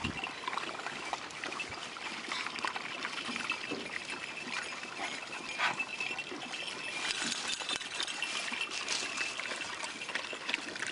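A pack of beagles lapping water from a dish, a steady run of small wet laps and splashes, while water trickles into the dish from a plastic water jug.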